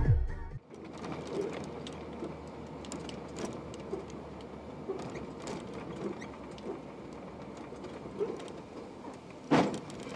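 Background music cuts off about half a second in, giving way to steady road noise inside a vehicle's cab with small rattles and clicks. About nine and a half seconds in comes one loud bang as the vehicle rear-ends the car ahead.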